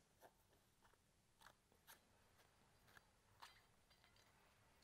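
Near silence, with a few very faint scrapes and ticks: the old gasket being picked off the gear pump's metal rear cover.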